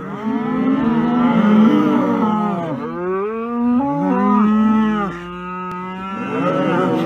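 Long, drawn-out animal calls, several overlapping, their pitch rising and falling and breaking off every few seconds.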